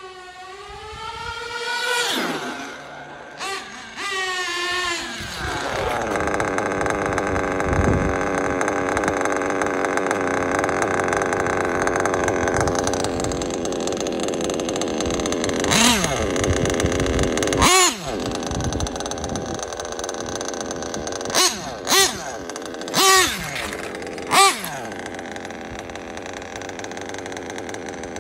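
HoBao Hyper 7 nitro RC buggy's small two-stroke glow engine running. It revs up in rising whines at first, then holds a steady high buzz as the buggy drives, with about six sharp throttle blips in the second half.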